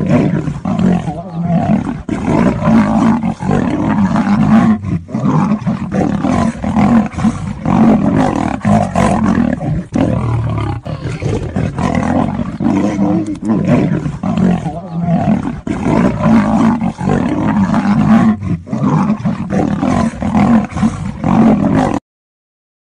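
A lion and a tiger snarling and roaring continuously as they fight, loud and unbroken, cutting off suddenly about 22 seconds in.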